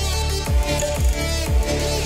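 An electronic dance track played through a pair of Edifier R2750DB bookshelf speakers and picked up by room microphones. Deep bass kicks that drop in pitch land about twice a second under sustained synth chords.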